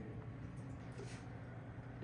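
Quiet room tone: a faint, steady low hum with no distinct event.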